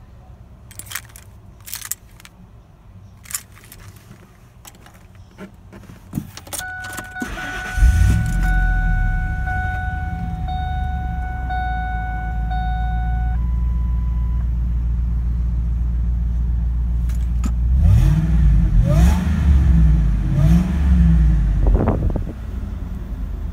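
Keys jangle, then a steady warning chime sounds, and about eight seconds in the 2003 Ford Lightning's supercharged 5.4 L V8 starts and settles into an idle. Near the end it is revved several times, the last rev rising to a whine.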